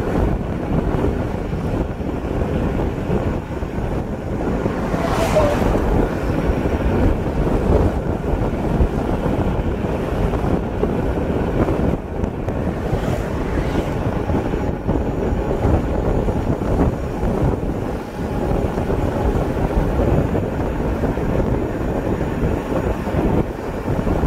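Wind buffeting the microphone of a camera on a moving vehicle, mixed with road noise: a steady, dense rush.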